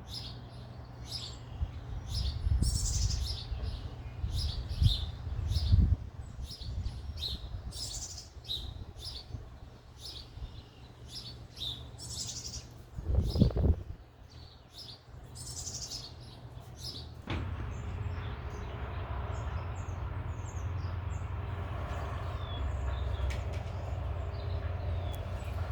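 Parent songbirds chirping in quick, sharp, high calls, several a second, around a fledgling that is learning to fly. A single low thump comes about 13 seconds in. From about 17 seconds a steady low rumble sets in and the chirps grow fainter.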